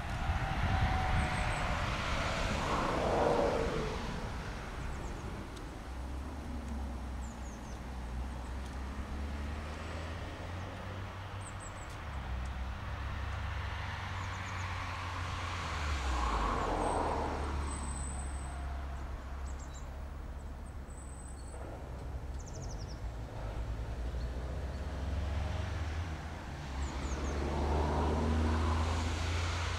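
Road traffic passing, swelling and fading three times, with a falling pitch as one vehicle goes by. Underneath runs a steady low hum that breaks off briefly about halfway through.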